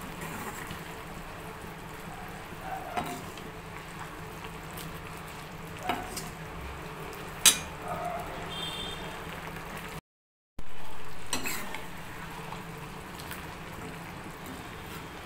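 Thick stew simmering and sizzling in a pan while a steel ladle stirs it, the ladle clicking against the pan a few times.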